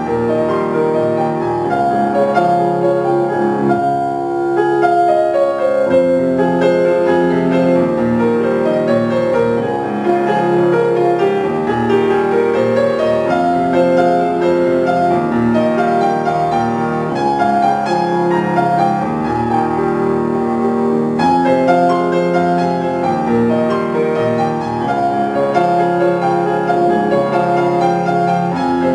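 Grand piano played solo: a continuous passage of many notes at an even loudness, with runs that rise and fall.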